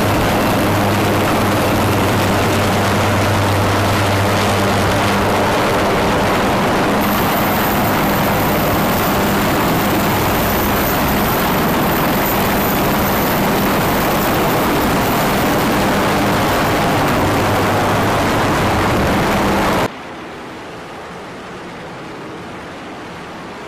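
Military helicopters running at close range on a ship's flight deck: a loud, steady rotor and turbine rush with a low hum under it. About twenty seconds in it cuts off abruptly to a much quieter rush of sea water along a ship's hull.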